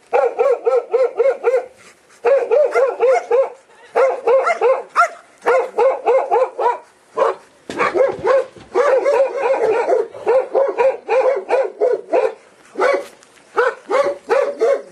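Working dog barking fast and without pause at a decoy in a bite suit, several barks a second in runs with short breaks: guard barking, holding the decoy at bay.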